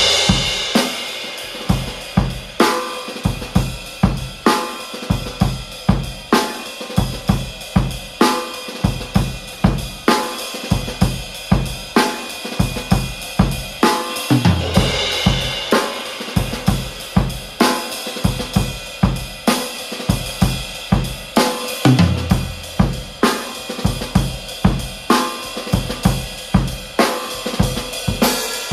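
Acoustic drum kit playing a steady beat, kick and snare hits about twice a second under hi-hat, with crash cymbals at the start and again about halfway through.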